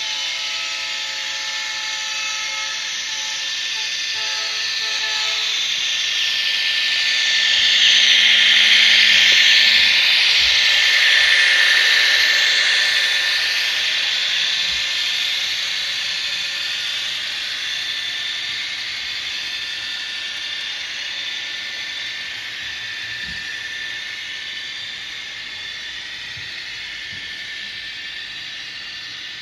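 Model train rolling past on curved track: a steady hiss of wheels and running gear swells as the Southern Pacific diesel locomotive comes closest, then slowly fades as the boxcars follow. A pitched, horn-like chord sounds for the first five seconds, broken once.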